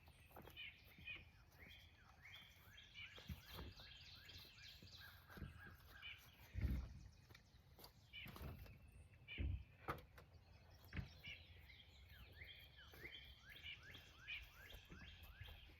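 Small birds chirping in many short, quick notes, with a few dull thumps, the two loudest a few seconds apart near the middle.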